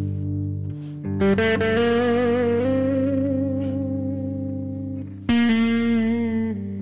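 Background music: guitar playing long held notes with vibrato over a steady low drone, with a fresh phrase coming in about a second in and again near the end.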